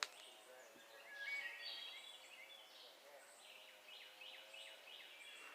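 Faint woodland ambience: short falling calls repeat a few times a second, with a brief louder cluster of higher calls about a second in, over a faint steady hum. A sharp click right at the start.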